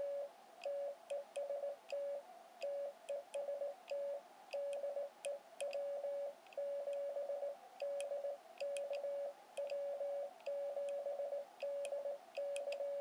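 A transceiver's Morse sidetone is keyed from a Vibroplex Brass Racer iambic paddle key. It is a steady single-pitched beep sent as quick dots and dashes, and faint sharp clicks sound alongside it.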